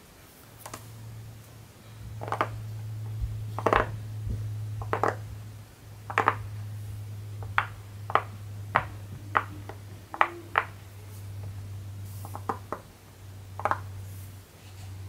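Silicone pop-it fidget toy bubbles pressed in by fingertips, a string of short pops, about two a second through the middle stretch, over a steady low hum.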